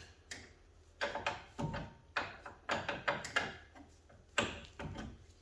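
Irregular metal clicks and clinks of a wrench working an axle nut in short strokes, about a dozen over the few seconds, some in quick pairs.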